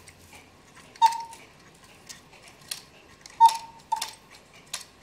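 A small Black Forest cuckoo clock being handled: about four sharp, irregularly spaced metallic ticks from the clock, most with a brief ring after them.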